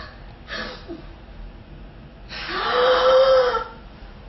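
A woman gasping loudly in shock: one breathy, pitched cry about a second long that starts roughly two seconds in, rises in pitch and then holds.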